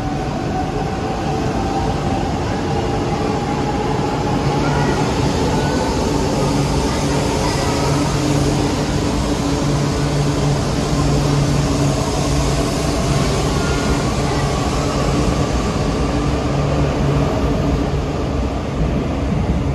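E4 series Max double-decker Shinkansen train running, a loud steady rumble with several humming tones held throughout.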